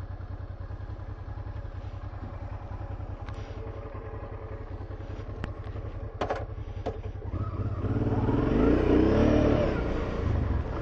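Honda XL650V Transalp's V-twin engine running steadily, with a few sharp clicks, then revving up about seven seconds in, louder and rising in pitch and loudest around nine seconds.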